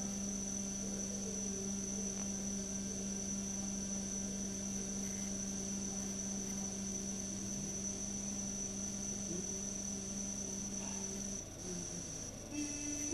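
A man's voice holding one steady note for about eleven seconds, phonating with an endoscope in his throat for a stroboscopic view of his vocal folds. The note stops, and a short, slightly higher note begins near the end. A faint, steady high-pitched whine runs underneath.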